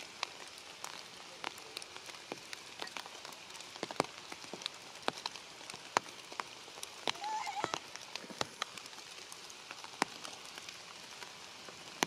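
Rain falling on leaves: a steady hiss with many separate drips and drops landing. About seven seconds in, a short wavering high call rises over it.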